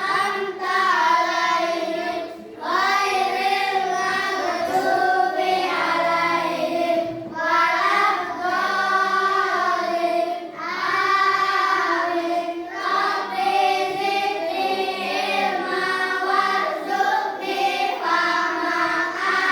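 A class of young children chanting a prayer together in unison, in a sing-song melody, with short breaks between phrases.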